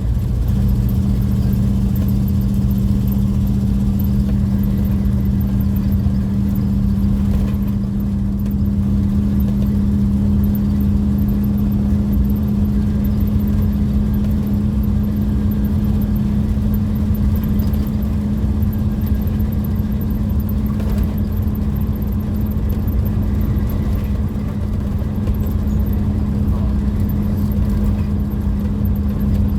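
Car cruising at steady speed, heard from inside the cabin: a constant low engine and road drone with a steady hum.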